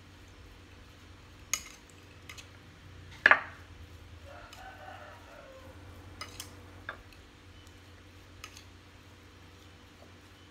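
Metal spoon scraping and clinking against a ceramic bowl while mixing chopped raw beef with seasonings. A few scattered sharp clinks, the loudest about three seconds in with a short ring.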